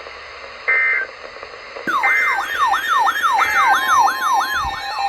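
Electronic siren yelping, its pitch sweeping rapidly up and down about three times a second, starting about two seconds in. Three short bursts of steady data tones come through, the first just before the siren starts, typical of an EAS alert header.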